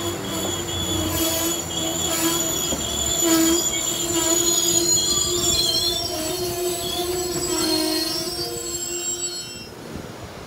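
Amtrak Northeast Regional train of Amfleet coaches passing close by on curved track, its wheels squealing in steady, wavering high tones over a rumble. The sound drops away about nine and a half seconds in as the last car goes by.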